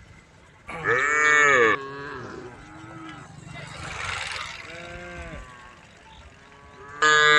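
Cows mooing: a loud moo about a second in, a few softer moos after it, and another loud moo starting near the end.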